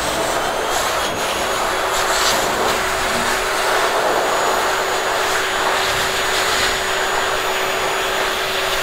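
Heavy-duty pet blow dryer running on low speed: a steady, loud blowing rush with a constant hum underneath.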